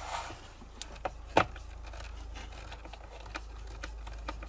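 Screwdriver working the screws out of a water distiller's plastic top cover, with a brief scrape at the start and scattered small clicks and taps of metal on plastic, the sharpest about a second and a half in, over a low steady hum.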